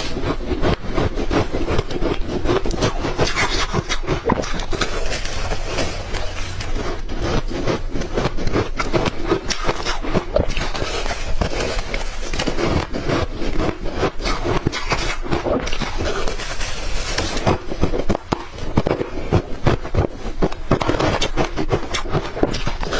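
Ice being bitten and chewed close to the microphone, a dense, irregular run of crunches and cracks.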